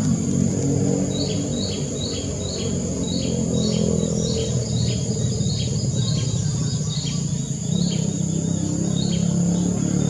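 Collared kingfisher calling: a long run of short, sharp, down-slurred notes, about two a second, starting about a second in. A steady high insect whine and a low rumble run underneath.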